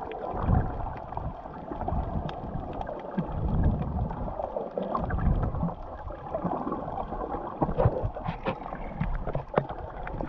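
Underwater sound picked up by a camera held below the surface: muffled, uneven rumbling and sloshing of water moving around it, with scattered faint clicks.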